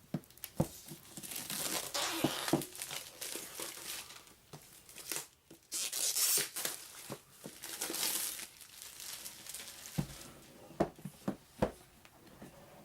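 Wrapping being torn and crinkled off a board game box, in bursts of rustling and tearing, followed by a few sharp knocks of the box being handled after about ten seconds.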